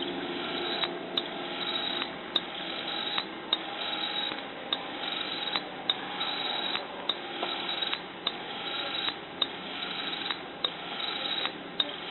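Homemade hose-reel irrigation machine running as its reel slowly winds: a steady rushing hiss with a sharp click about twice a second from its drive mechanism.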